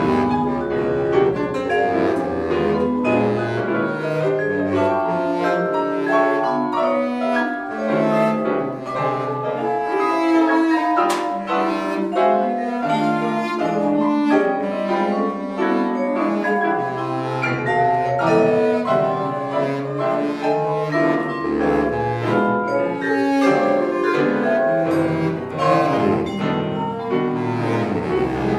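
Contemporary chamber music for bass flute, baritone saxophone, piano and percussion: a busy, unbroken texture of short, quickly changing notes in the low and middle range, with a few sharp struck attacks.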